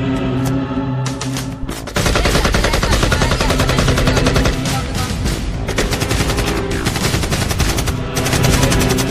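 Rapid machine-gun fire sound effect, in long fast bursts that start in earnest about two seconds in, laid over background music.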